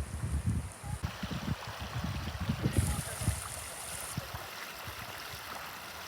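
Rainwater running and trickling after a torrential downpour, with wind buffeting the microphone in irregular gusts for the first four seconds before the flow goes on steadily.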